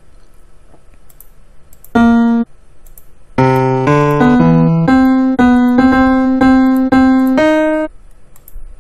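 Scratch 2's built-in piano sound playing single short notes from its note blocks. One note sounds about two seconds in, then a run of about ten notes follows half a second apart, changing pitch at first and then repeating the same note.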